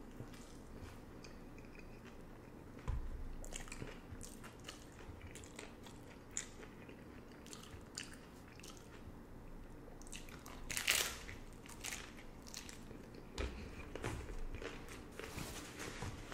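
Close-up chewing and biting of crunchy hard-shell beef tacos: a run of crisp crackling crunches, with the loudest crunch about eleven seconds in.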